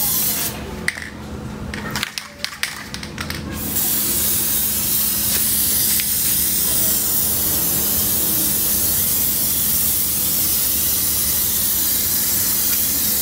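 Aerosol can of Plasti Dip spraying with a steady hiss, cut off for about three seconds shortly after the start, when a few sharp clicks are heard, then spraying again without a break. A faint steady hum runs underneath.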